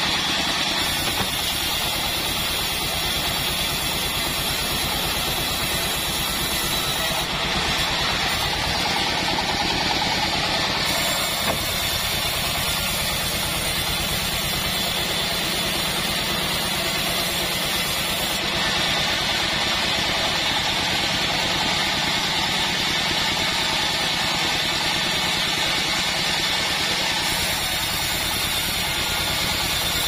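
Band sawmill running steadily, its drive engine idling with an even pulse and the band blade turning without cutting.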